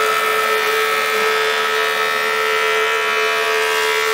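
Powermatic Model 100 thickness planer running and cutting a board: a steady, loud whine with cutter hiss.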